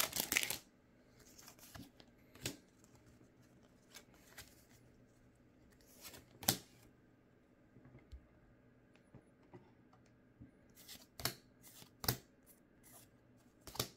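Pokémon trading cards flicked one by one through the hand, each card sliding off the stack with a short, soft swish: a few spread-out swishes, then a quicker run of them near the end.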